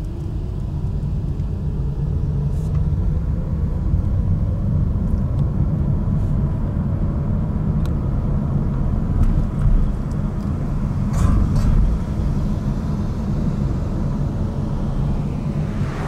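Car driving on a winding road, heard from inside the cabin: a steady low rumble of tyres and engine, with a faint engine tone slowly rising in pitch as the car speeds up. A couple of brief knocks come about two-thirds of the way through, and a rushing of wind builds near the end.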